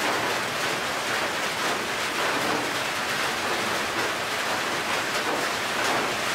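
Steady rain falling on a corrugated metal roof: an even, unbroken hiss.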